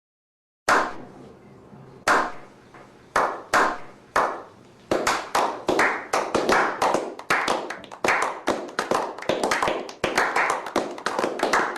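Sharp clap-like hits, a few at first about a second apart, then quicker and uneven, two or three a second, from about five seconds in.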